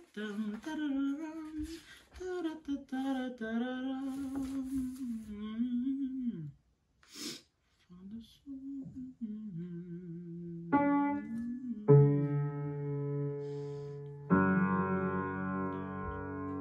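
A voice hums a wavering tune for the first several seconds. Then an upright piano comes in about eleven seconds in: three chords struck a second or two apart, each left ringing.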